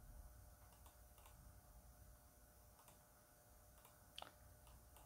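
Faint computer mouse clicks, about six of them spread over a few seconds, the loudest a little after four seconds in, over a quiet low hum of room tone.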